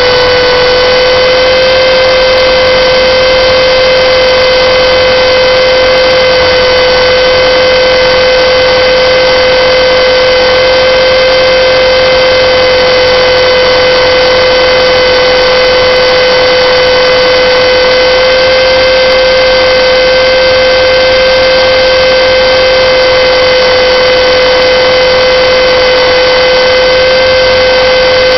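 Align T-Rex 450 electric RC helicopter heard from a camera mounted on the airframe: a loud, steady whine from the motor and drive gears as the rotors spin at constant head speed.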